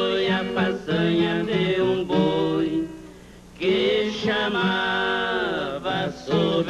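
Brazilian música caipira: male voices singing a moda de viola over plucked acoustic string accompaniment. A brief break comes about halfway through, then a long held note that slides down at its end.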